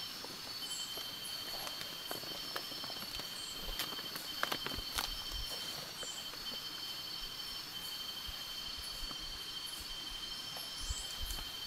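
Steady high-pitched insect chorus, two continuous shrill tones, with a few light clicks and rustles around the middle.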